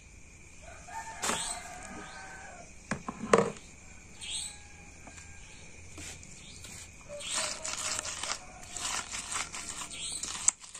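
A rooster crowing once, about a second and a half long, starting a little over a second in, among scattered clicks and knocks of kitchen work, with a louder knock about three seconds in.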